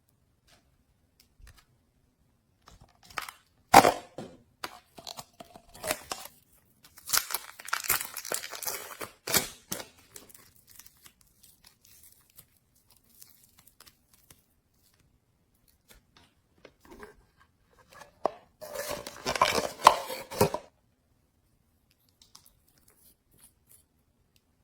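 Slime being squeezed, stretched and folded by hand, making sticky crackling and popping noises in three spells with quiet pauses between.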